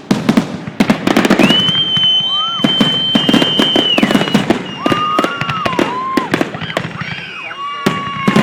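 Fireworks finale: a dense, rapid run of bangs and crackles, with a long high whistle from about a second and a half in and shorter whistles later.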